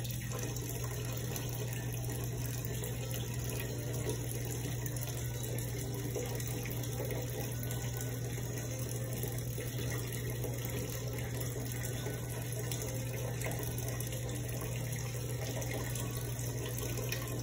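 Homebrewed stout running steadily from a siphon tube into a stockpot, a continuous trickling pour, over a steady low hum.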